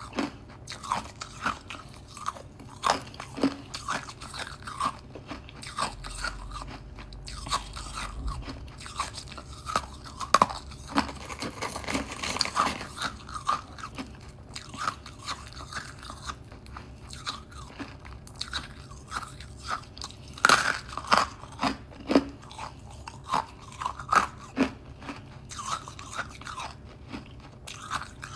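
Close-up crunching of a person biting and chewing hard frozen frost: irregular loud crunches, several a second, with quieter grinding chews between them.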